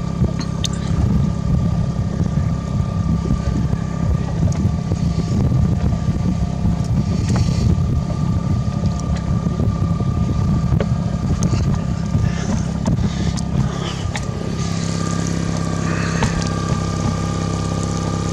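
Boat motors running steadily at trolling speed, led by the Suzuki 9.9 HP kicker outboard, with a faint steady whine and wind and water noise. About two-thirds of the way through, the engine sound becomes smoother and more even.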